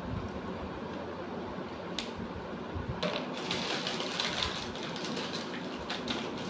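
Steady low background hum, with a single click about two seconds in and a stretch of light rustling and clicking handling noise over the second half.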